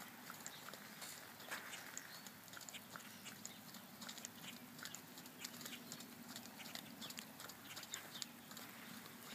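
Light rain pattering: scattered faint taps at an irregular pace, over a faint steady low hum.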